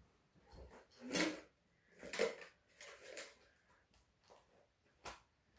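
Quiet handling of knitting needles and knitting: a few soft rustles, and a sharp click about five seconds in.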